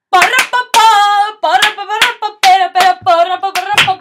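A young woman singing loudly in held notes while clapping her hands along, about two or three claps a second.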